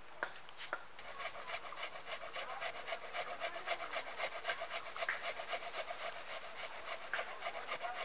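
Vegetables being grated by hand on a grater into a bowl: a fast, even rasping of about five strokes a second that starts about a second in.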